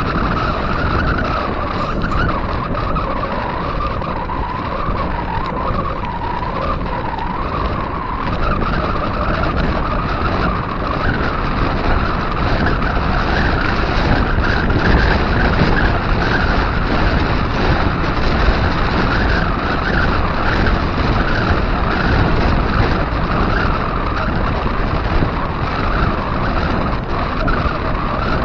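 Steady ride noise from a bicycle at speed: wind rushing over an action camera's microphone mixed with the hum of wide 700x45c tyres rolling on asphalt, with a wavering mid-pitched hum running through it.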